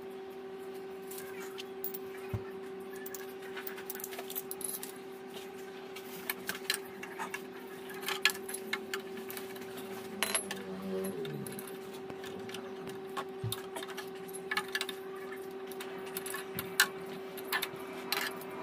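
Scattered light metallic clicks and clinks of hand tools and metal parts being handled, over a steady hum.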